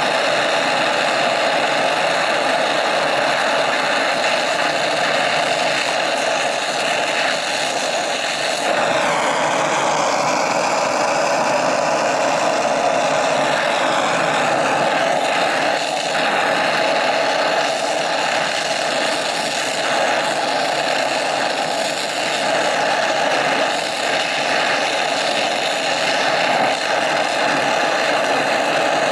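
Oxy-fuel brazing torch flame hissing steadily as it heats a copper joint on an evaporator coil. The hiss shifts lower about nine seconds in.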